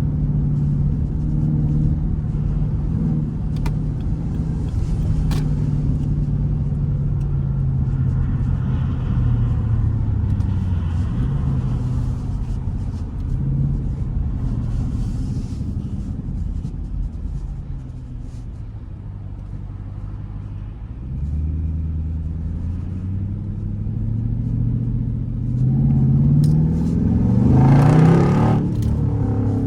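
Straight-piped Jeep Grand Cherokee SRT8 V8 exhaust while driving, its pitch shifting with the throttle. It eases off and drops lower about two-thirds through, then climbs in a loud acceleration near the end.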